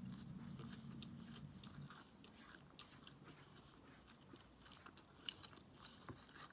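Faint chewing and biting: scattered small wet clicks and crunches of a person eating close to the microphone.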